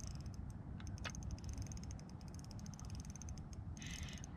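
Fishing reel ticking in a fast run of faint clicks while a hooked bass is played on a bent rod, with a brief louder hiss near the end.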